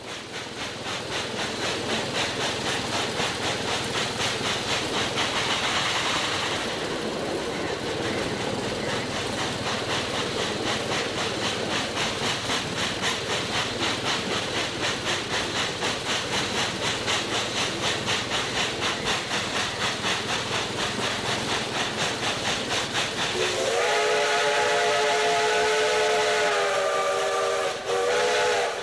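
Steam locomotive working with rapid, even exhaust chuffs over a steady hiss of steam. Near the end its steam whistle blows one long blast of several tones together, lasting about five seconds and dropping slightly in pitch before a brief break.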